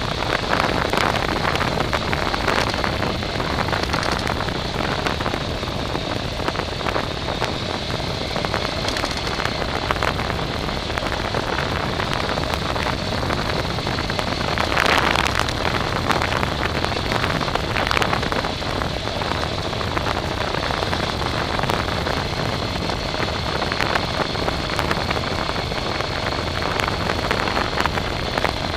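A small vehicle driving over rough ground: a steady noisy rumble with a constant high whine, and louder crunches about 15 and 18 seconds in.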